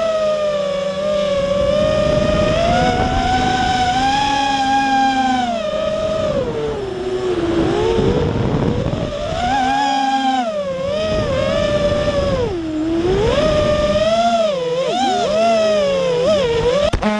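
Eachine X220 racing quadcopter's brushless motors and propellers whining, heard from its onboard camera. The pitch rises and falls constantly with throttle, sweeping faster and more sharply in the second half.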